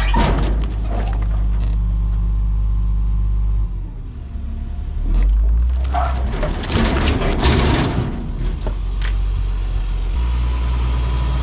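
Skid steer's engine running steadily, then dropping in pitch as it comes under load about four seconds in. A stretch of knocking and crunching follows as heavy logs are handled, and the engine returns to its steady run near the end.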